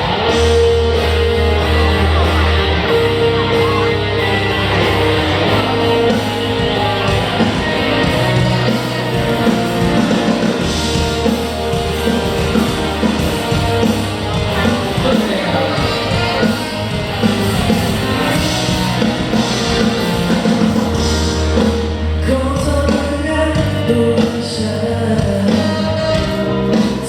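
Live band playing an amplified rock-pop song over a venue sound system, with a singer's voice over bass and guitar; the music jumps in at full loudness at the start.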